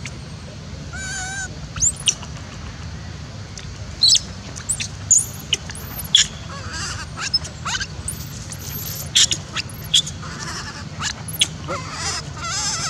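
Baby macaque giving many short, high-pitched squeals and cries, some rising and falling in pitch, with a warbling call about a second in, over a steady low hum.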